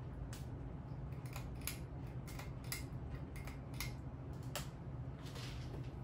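1987 Hunter Biarritz ceiling fan running on low speed: a steady low motor hum with a dozen or so light, irregular clicks.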